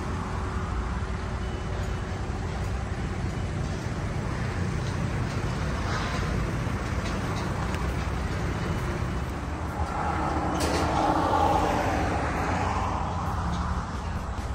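Road traffic going past on a highway, a steady rumble of engines and tyres. A louder vehicle, heavier-sounding, passes about ten seconds in, then fades.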